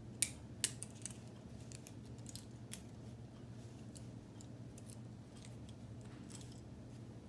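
Plastic K'nex rods and connectors clicking as they are snapped onto hinge pieces: two sharp snaps within the first second, then a scatter of lighter clicks, over a steady low hum.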